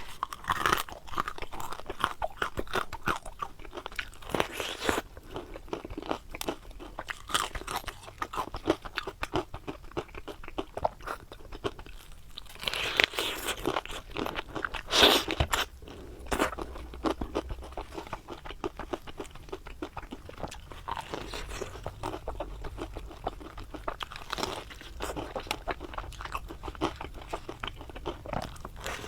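Close-up crunching and chewing of deep-fried stuffed eggplant fritters, with irregular crisp bites and louder crunches every few seconds.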